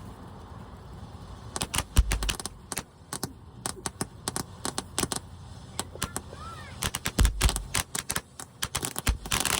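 Fireworks going off: a rapid, irregular string of sharp crackling pops starting about a second and a half in, with two deeper thuds about two and seven seconds in.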